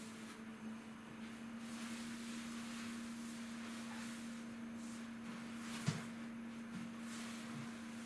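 A steady low hum with a faint hiss over it, and a single sharp knock about six seconds in.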